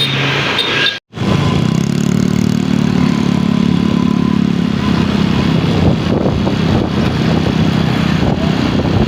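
Bus engine running close by with a steady low drone, after a brief drop-out in the audio about a second in.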